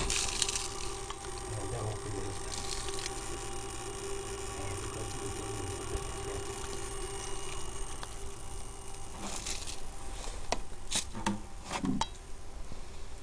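Homemade high-voltage apparatus running with a steady electrical hum and faint crackle. Several sharp clicks come about nine to twelve seconds in.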